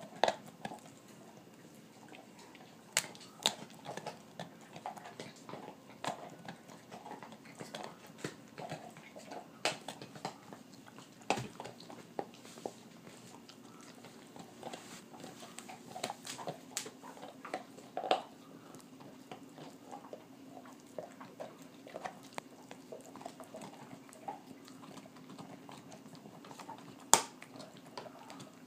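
A dog gnawing a raw beef rib bone: irregular chewing with sharp clicks and cracks of teeth on bone, the loudest a few seconds in and near the end.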